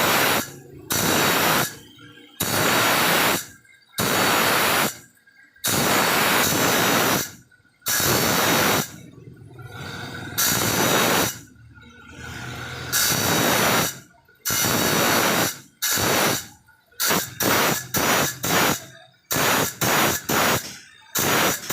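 A hand saw's teeth being sharpened with a file: a run of rasping file strokes, each about a second long with a short pause between. The strokes turn shorter and quicker in the second half.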